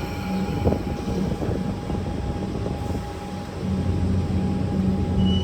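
Comeng electric suburban train running at the platform: a low rumble with a steady thin whine, and a low electric hum that swells a little past halfway.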